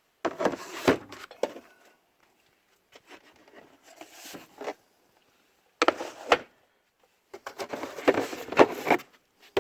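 Steel drawers of a Snap-on KRA tool box being slid shut and open, with the tools inside clattering; four separate bursts of rattling and knocks.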